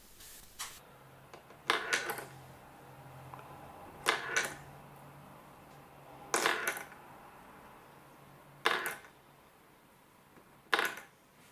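Sharp mechanical clicks in short clusters, five of them about two seconds apart, over a faint low hum in the middle part.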